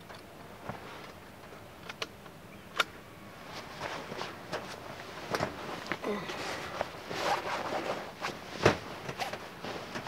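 Rustling of clothing and handling of the rifle and gear as a shooter settles in behind the gun, with scattered clicks and knocks; the sharpest knock comes near the end.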